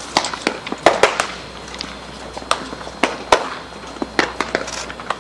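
Baseballs smacking into leather gloves as several players play catch: a dozen or so sharp pops at irregular intervals, some louder than others.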